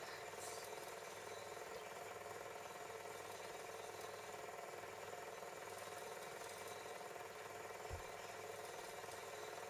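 Film projector running: a faint, steady mechanical whir, with one brief low thump about eight seconds in.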